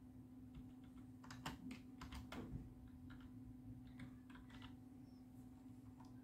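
Typing on a computer keyboard: a quick run of key clicks, a short pause, then a few more keystrokes, faint over a steady low hum.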